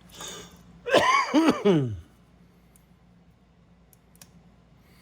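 A person's breath, then a loud wordless vocal sound about a second long in three quick pulses that fall in pitch, followed by a few faint clicks.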